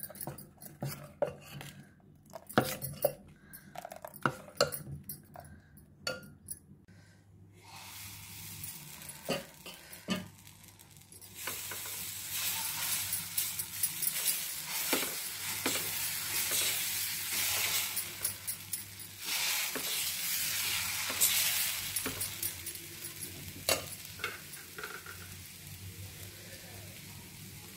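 A steel spoon clinking and scraping against a steel bowl as ragi dosa batter is stirred, then, about eleven seconds in, batter sizzling steadily on a hot dosa pan as it is poured and spread, with occasional spoon clicks; the sizzle eases toward the end.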